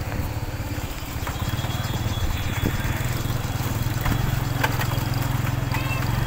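Motorcycle engine running at low speed, a steady low engine note that grows a little louder after the first second.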